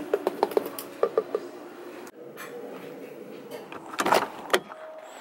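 Light handling noises: a quick run of small clicks and taps in the first second and a half, then two louder knocks about four seconds in.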